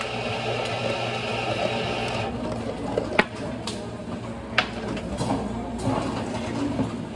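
Ice cubes poured from a scoop into a plastic cup: a rattling pour that stops about two seconds in, followed by a few separate clinks and knocks as stray cubes are dropped and handled. A steady low hum runs underneath.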